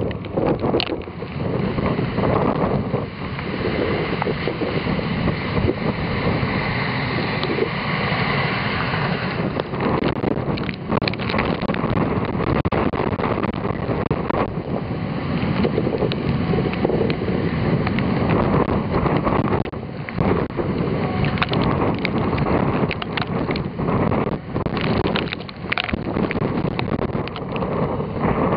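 Typhoon wind buffeting the microphone: a continuous loud rush of noise that rises and falls with the gusts.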